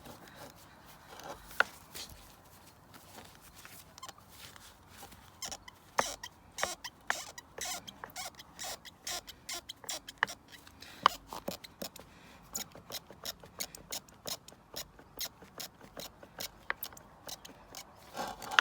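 Squeaking from a UAZ Patriot's front driveshaft, whose universal-joint crosses have failed. It comes as short, sharp, irregular chirps and clicks that come more often in the second half, with a couple of louder ones.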